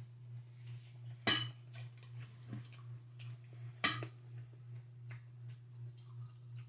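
Two sharp clinks of tableware, about a second in and near the four-second mark, with fainter small clicks of eating between, over a steady low hum that pulses a little over twice a second.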